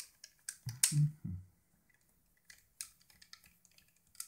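Small clicks and scrapes of a hex driver turning a tiny hex bolt out of a plastic drone camera mount, with handling knocks, the loudest cluster about a second in.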